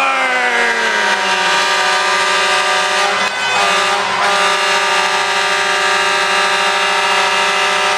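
Arena goal horn sounding one long, steady blast with many overtones, signalling that a goal has just been scored.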